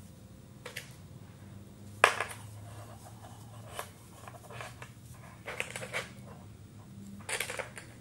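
Hands folding elastic binding along a fabric bra strap and fastening it with plastic sewing clips: scattered small clicks and rustles, the sharpest about two seconds in, over a faint low hum.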